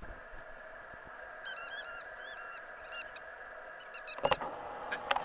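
Squeaky toy ball being chomped in a dog's mouth: a rapid run of high squeaks for about a second and a half, a few more shortly after, then a sharp knock about four seconds in.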